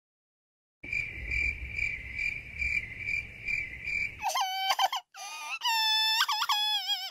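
Cartoon cricket-chirping sound effect: a steady high chirp pulsing about two or three times a second over a low rumble. About four seconds in it gives way to a character's high-pitched, sped-up wordless voice whose pitch wavers and glides.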